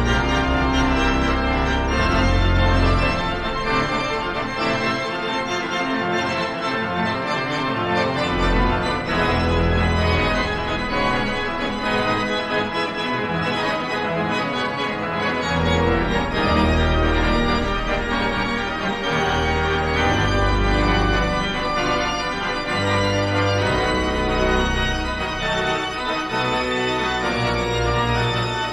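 Organ music: sustained chords over a slowly changing bass line.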